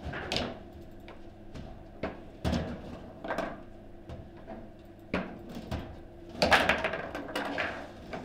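Table football in play: sharp, irregular clacks and thuds of the hard ball struck by the rod figures and of the rods knocking against the table, with a quick run of louder hits about six and a half seconds in.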